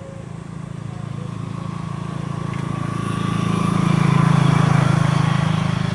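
A road vehicle passing close by, its engine drone growing louder to a peak about four seconds in, then easing off.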